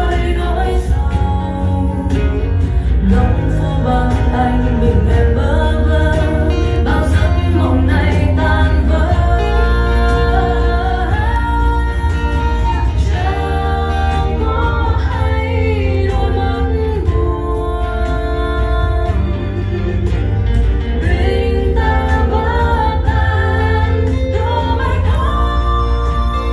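A Vietnamese pop ballad with singing over a strong, steady bass line, played back on a Harman/Kardon Citation 200 wireless speaker for a sound test.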